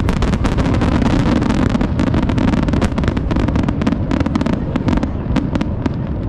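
Fireworks going off in quick succession: dense crackling over a steady low rumble, thinning out near the end.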